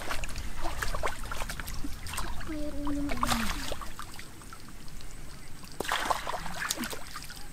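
Shallow muddy water splashing and sloshing as bare feet wade through it and a hand net and basin are scooped and dragged through the water. A short voiced call falls in pitch about three seconds in.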